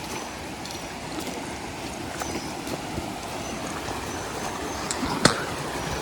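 Mountain stream rushing steadily over rocks, with a single sharp knock about five seconds in.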